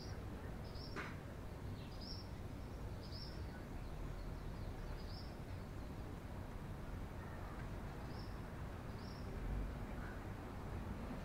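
Eurasian tree sparrow giving short single chirps at irregular intervals, about eight in all, over a steady low background rumble. A sharp click about a second in.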